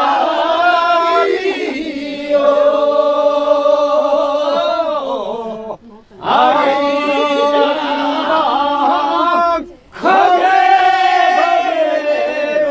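A group of men's and women's voices singing a Korean folk work song (japga) unaccompanied, in long drawn-out, wavering notes. The singing breaks off briefly twice, about six and ten seconds in, and then resumes.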